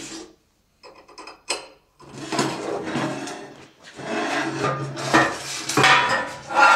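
Heavy welded steel plate dragged across steel, a rough scraping with a few sharp metal knocks near the end as it is shifted and set down.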